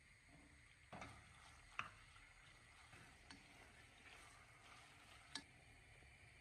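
Raw chicken pieces cooking in oil in a non-stick pot with a faint sizzle, and four light clicks and knocks of a wooden spoon against the pot as the chicken is stirred, the sharpest a little under two seconds in.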